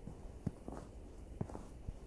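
Footsteps crunching in snow, about one step a second, each footfall a short crunch.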